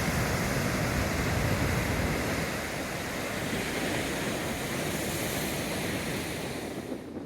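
Atlantic Ocean surf breaking and washing up a sandy beach at high tide: a steady rushing hiss of water that eases off slightly near the end.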